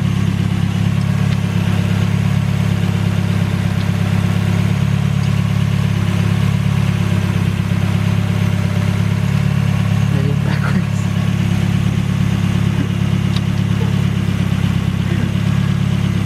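1995 Mazda Miata's 1.8-litre four-cylinder engine idling steadily, warming up while air is bled from its freshly filled cooling system.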